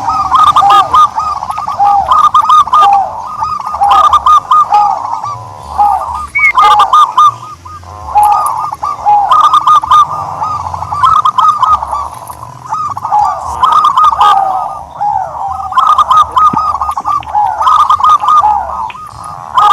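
Turtledove calling: long runs of short, arching notes repeated rapidly, with brief pauses between runs and scattered clicks.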